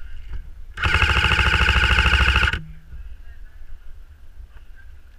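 Airsoft electric rifle firing one rapid full-auto burst of nearly two seconds, its motor and gearbox whirring under the fast rattle of shots, with a short low hum as the motor stops. The sound is muffled by the GoPro's underwater housing.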